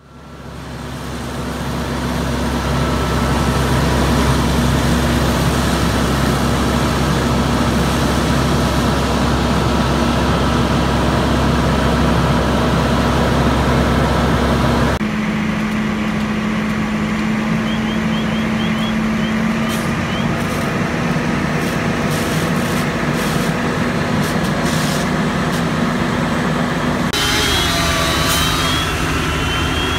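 Diesel engine of a fire department aerial ladder truck running steadily with a low hum. About halfway through, a cut brings in a different steady engine noise with scattered clicks.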